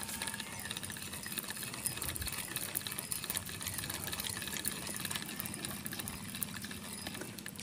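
A steady low motor hum with a faint hiss over it.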